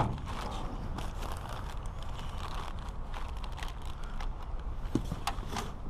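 Clear plastic packaging crinkling and crackling irregularly as a bagged fuel pump and filter assembly is handled, with a few sharper ticks about five seconds in, over a low steady rumble.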